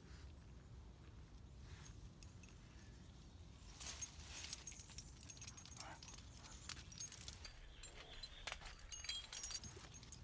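Metal collar and leash hardware jingling in quick, irregular clinks as a dog walks on its leash, starting about four seconds in and carrying on to the end, over a low steady background rumble.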